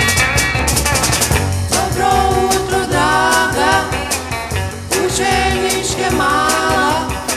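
1960s Yugoslav rock-and-roll band recording playing a passage with a steady beat under a held, pitch-bending melodic lead line.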